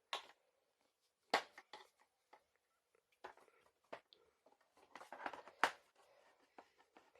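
Scattered clicks and knocks of hard plastic parts being handled and fitted together on a Bissell PowerLifter upright vacuum during belt and brush-roll reassembly, with a small cluster of them about five seconds in.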